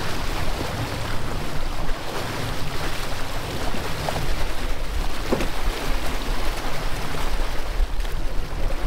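Steady rush of wind on the microphone and churning sea water beside a moving fishing boat, over the low rumble of the boat's engine.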